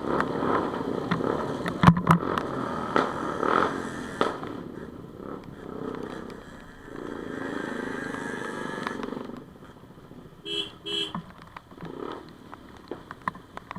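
Road traffic with vehicles passing, busiest in the first few seconds and then fading, with two short beeps a little after the middle.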